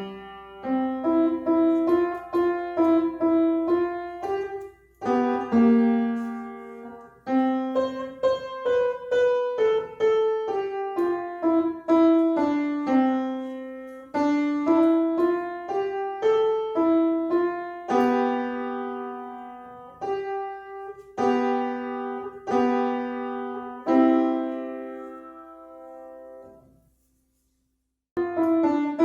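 Solo piano playing a simple melody over chords, each note struck and fading. Near the end the phrase dies away into a short silence before the playing starts again.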